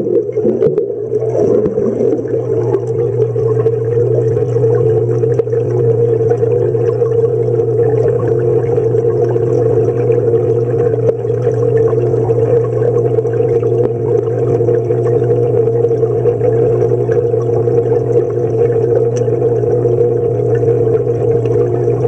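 Steady underwater hum of a swimming pool, with a constant low drone and water noise heard through a submerged microphone.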